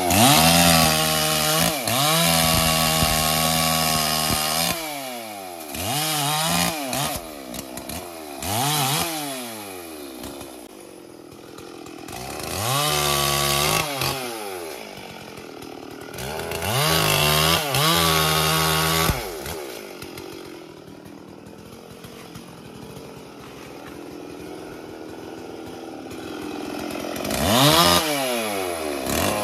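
Stihl MS 440 two-stroke chainsaw cutting a felled tree trunk. It revs to a steady full throttle for bursts of a few seconds and drops back to a quieter idle between them. The longest idle is in the second half, and it revs up again near the end.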